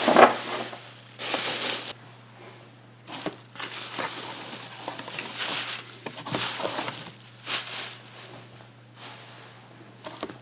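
Packing paper crumpling and rustling in irregular bursts while a box of padlocks is rummaged through, with a loud knock right at the start. A steady low hum runs underneath.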